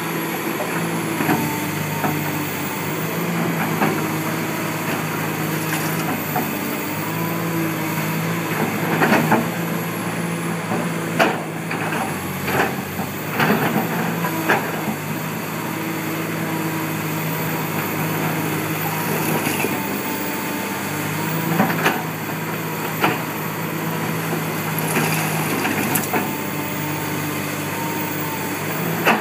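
Komatsu PC300LC hydraulic excavator's diesel engine running steadily, its note shifting back and forth between two pitches. Over it, bricks and debris from the building crash down in a series of sharp knocks and crashes, thickest from about nine to fifteen seconds in, with a few more later.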